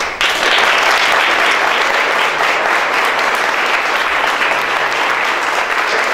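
Audience applauding: many people clapping, the applause building up at once and holding steady.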